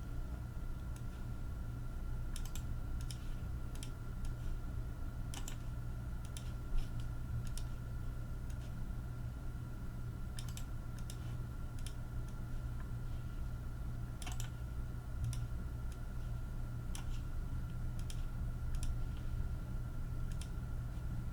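Scattered, irregular computer keyboard and mouse clicks, as lists are copied and pasted into a spreadsheet, over a steady low electrical hum.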